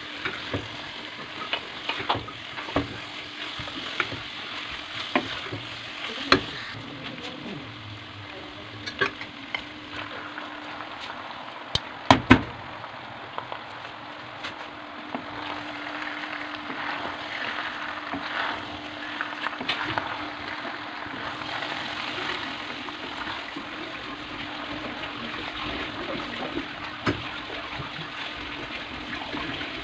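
Wooden spatula stirring mince and vegetables frying in a steel pot, with a steady sizzle and scattered knocks of the spatula against the pot, the loudest about twelve seconds in. Boiled macaroni is then stirred in.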